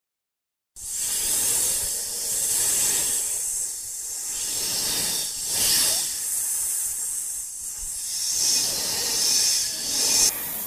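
Snake hissing: a long, breathy hiss that starts sharply about a second in and swells and eases several times.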